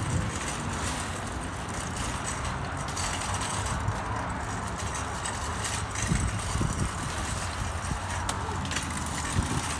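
Shopping cart rolling across a store floor, its wheels making a steady low rumble with small rattles and clicks.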